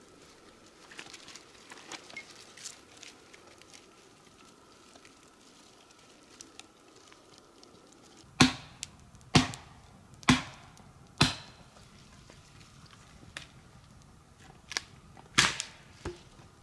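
Dry twigs snapped by hand: four loud, sharp cracks about a second apart, then two more near the end. Before them, faint crackling and rustling of small twigs as a small fire is fed.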